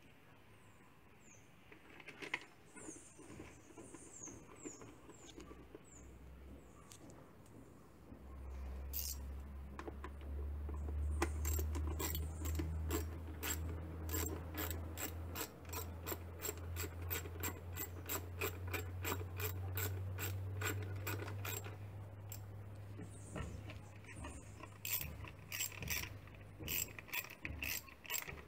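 Hand socket ratchet clicking in steady runs of about three to four clicks a second as engine bolts are turned, starting about eight seconds in, over a low hum.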